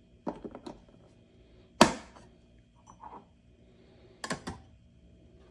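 Handling clicks and knocks: a quick run of small clicks, one sharp knock about two seconds in that rings briefly, and a double click near the end.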